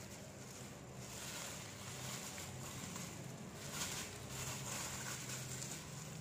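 Black plastic bubble wrap rustling and crinkling as it is pulled open and handled, loudest about four seconds in, over a steady low hum.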